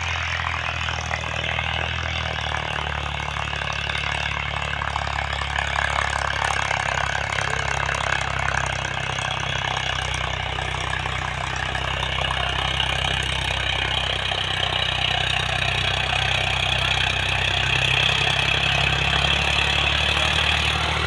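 Farmtrac tractor's diesel engine running steadily, growing a little louder over the stretch.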